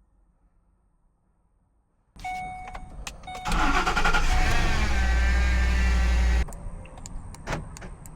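Lincoln car being started with a newly cut key. A steady electronic tone comes on about two seconds in, the engine starts about a second later and runs loud with a changing pitch for about three seconds, then drops to a quieter idle with a few clicks.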